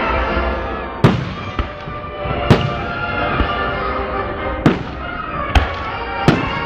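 Fireworks going off: about five sharp bangs a second or so apart, with music playing steadily underneath.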